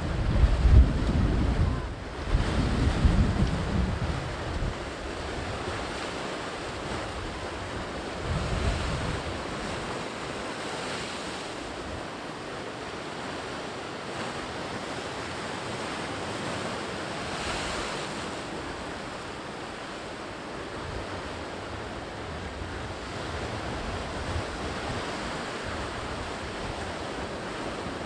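Sea waves breaking and washing on the shore as a steady surf, with wind buffeting the microphone in heavy low rumbling gusts during the first few seconds and again around eight seconds in.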